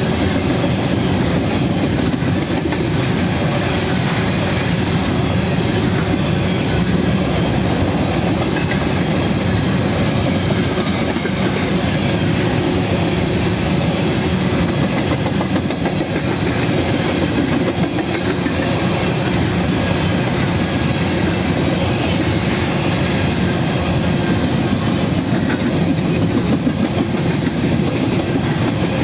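Empty covered hopper cars of a grain train rolling past, their steel wheels running over the rails in a steady, loud rumble with no letup.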